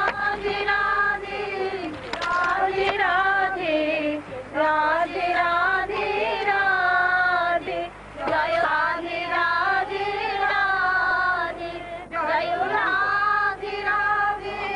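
A high-pitched voice singing a devotional song in long, held, wavering notes, phrase after phrase with short breaths between.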